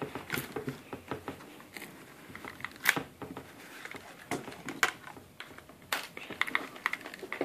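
Handling noise of corded headphones and their cables being pushed into the foam cutouts of a Pelican 1450 hard case: rustling with scattered small clicks and knocks, the sharpest about three seconds in.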